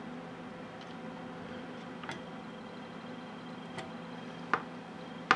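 A few light clicks, about four, the last two near the end the loudest, from fingers handling a knurled metal knob on the end of a CNC3018 lead screw. A faint steady hum sits under them.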